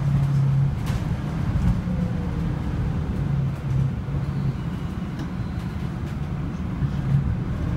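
Interior ride noise of a Scania Citywide LFA articulated city bus under way: a steady low drone from the drivetrain with road rumble.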